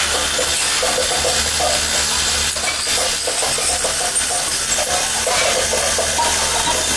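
Lathe running with an aluminium kettle body spinning on it while a hand-held steel forming bar is pressed against the metal, giving a steady scraping noise over a low motor hum.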